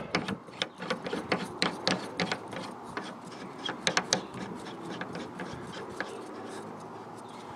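Quick small clicks and scraping of a Midland GMRS antenna being twisted off and on the threads of its hood-lip mount by hand, as the 6 dB antenna comes off and the stubby 3 dB antenna goes on. Most of the clicking falls in the first four seconds, with one more click about six seconds in.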